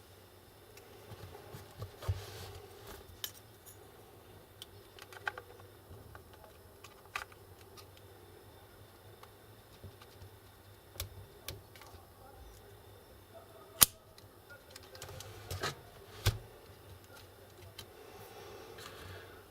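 Scattered small clicks and taps of tools and laptop parts being handled, with two sharper clicks about 14 and 16 seconds in, over a faint steady hum.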